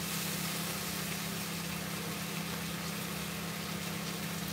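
Kitchen range hood fan running with a steady low hum, over the faint sizzle of ginger pork and its sauce reducing in a frying pan.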